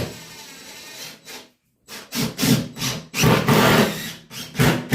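Toilet closet flange being shifted and scraped against the wooden subfloor as it is positioned: a knock, then a steady rub, then a string of irregular scraping strokes.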